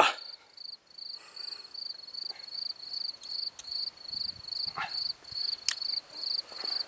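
A cricket chirping in a steady rhythm, about three short high-pitched chirps a second. Two sharp clicks come in the second half.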